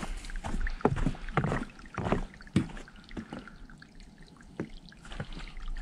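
Footsteps of a person walking on a trail, about two steps a second, growing fewer and fainter in the second half.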